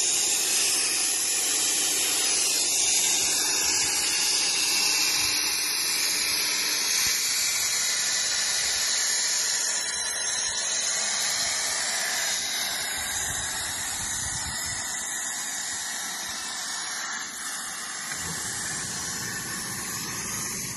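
CNC plasma cutter's torch cutting metal plate: a steady, loud hiss of the plasma arc and its compressed air, easing slightly in level over the second half.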